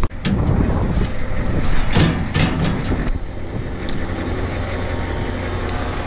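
Wind buffeting the microphone over the low, steady rumble of a running vehicle engine, with a few brief knocks about two seconds in.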